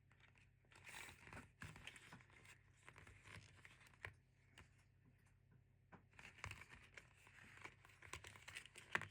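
Faint rustling and crinkling of flat ribbon cables being handled, with small clicks of their plastic connectors and a sharper click near the end.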